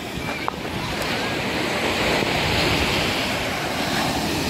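Sea waves breaking and washing up a sandy beach: a steady rush of surf that swells a little about a second in.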